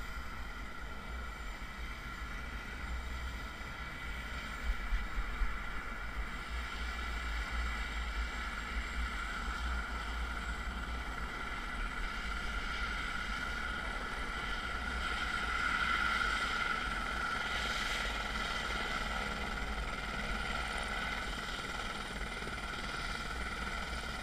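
Helicopter's turbine engine running on the ground with a steady high whine, growing louder about two-thirds of the way through, over low wind rumble on the microphone. A few sharp knocks come about five seconds in.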